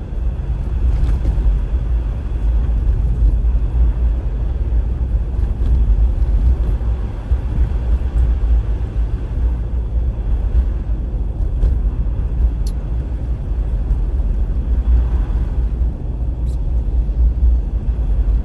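Car driving: a steady low rumble of engine and road noise, with a couple of faint ticks.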